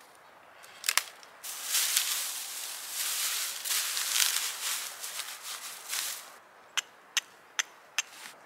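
Dry grass tinder bundle being crushed and rubbed between gloved hands: a dense crackling rustle for about five seconds. Then four quick, sharp strikes of a fire striker throwing sparks into the tinder.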